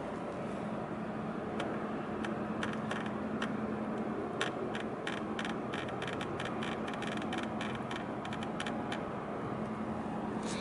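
Steady harbour ambience: a low, steady hum under a noisy wash, with a run of quick clicks between about four and nine seconds in.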